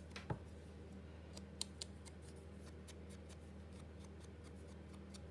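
Faint, scattered small clicks and light taps from handling paper-craft materials, over a steady low hum.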